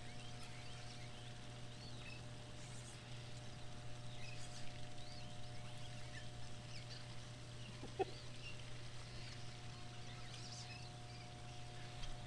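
Small birds chirping here and there over a steady low hum, with a single sharp click about eight seconds in.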